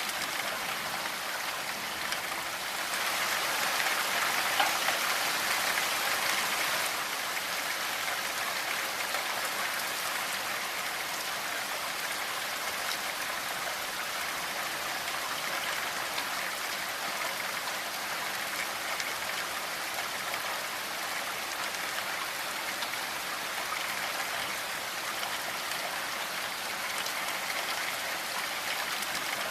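Steady rainfall with pattering drops, swelling a little louder for a few seconds early in the stretch before settling back.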